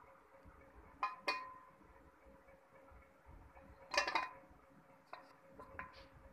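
A slate pencil knocking and clinking against the sides of an aluminium bowl of water as it is dipped and stirred. Two sharp clinks come about a second in, a louder cluster of knocks around four seconds in, and lighter taps near the end.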